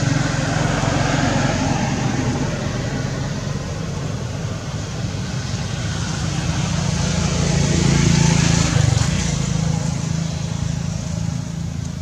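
A motor vehicle running close by, a steady low engine hum with road noise, louder about eight seconds in.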